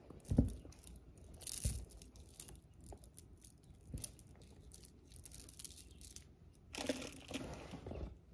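Handling noise from a canvas tote bag and its contents: a few soft thumps as a beaded mask chain is lifted and handled, then a longer rustle of the canvas near the end as a hand reaches into the bag.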